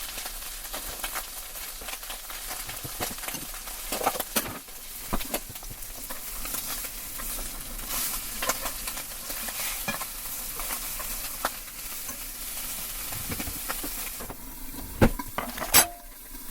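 Food sizzling in a frying pan while being stirred, with frequent small clicks of a utensil against the pan. Near the end the sizzle dies down and two sharp knocks sound.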